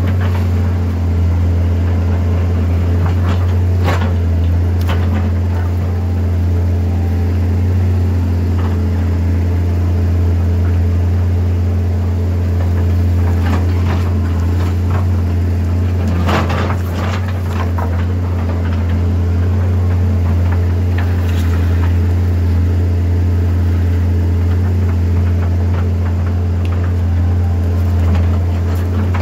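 Caterpillar 320CL excavator's 3306 inline-six diesel running steadily at working speed under load, with a few short knocks over it, the clearest just past halfway.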